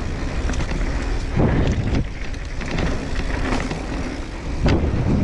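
Mountain bike rolling fast down a dirt trail: steady wind noise on the microphone over the tyres on the dirt, with two louder jolts, about a second and a half in and near the end.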